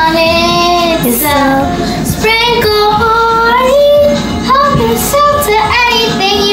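Background pop song with a child's singing voice: held, gliding sung notes over a steady backing track.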